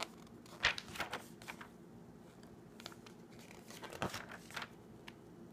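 Glossy catalog pages rustling and crinkling as they are handled and turned by hand: a few short papery rustles, the loudest just under a second in and again about four seconds in.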